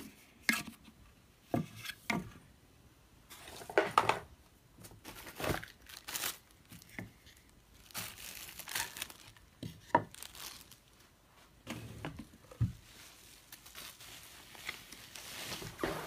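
Plastic wrapping and bubble wrap crinkling and rustling in short bursts as a vacuum's hose and attachments are pulled out of a cardboard box, with a few light knocks of plastic parts.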